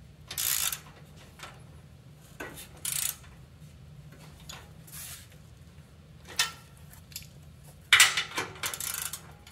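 Socket ratchet wrench and metal tools working the bolts of a bicycle rear-wheel sprocket: short bursts of ratchet clicking and metal clinks, a few seconds apart, with the loudest run of them near the end.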